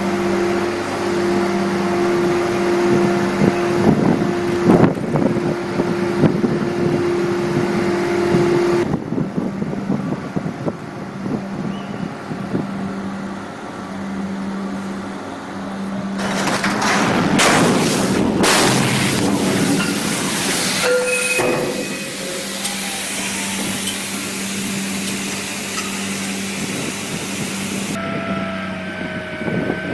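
Heavy-lift ship crane machinery running during a lift: a steady mechanical hum over a hiss. A higher hum drops out about a third of the way in, and there is a rough clatter a little past halfway.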